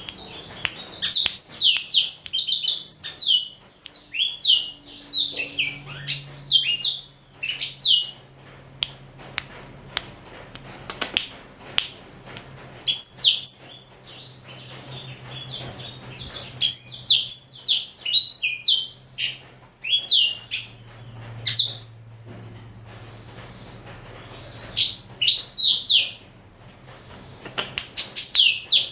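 Male black-throated canary (blackthroat) singing in bouts of fast, high, sliding notes, broken by pauses of a few seconds between bouts.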